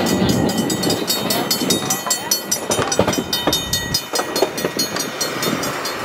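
Narrow-gauge passenger car rolling along the track, its wheels clicking and clacking over the rails, with frequent short knocks and rattles throughout.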